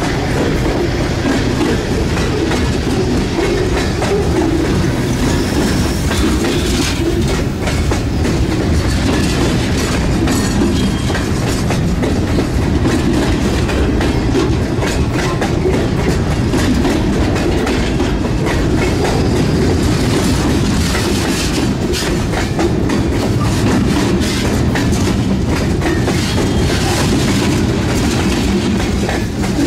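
HO scale model freight cars rolling steadily over a model railroad trestle bridge: a continuous rumble of small metal wheels on the track, with frequent light clicks from the rail joints.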